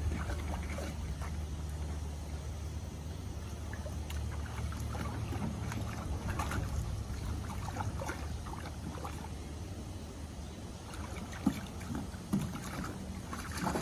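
Water splashing and sloshing as a husky puppy walks and paws about in a shallow plastic kiddie pool, in scattered irregular splashes, a couple of them louder near the end.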